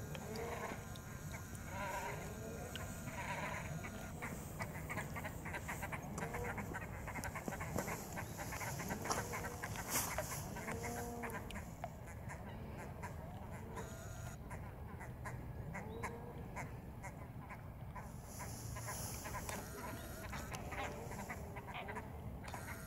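Waterbirds calling on and off, many short calls that rise and fall in pitch, over a steady low rumble with light clicks.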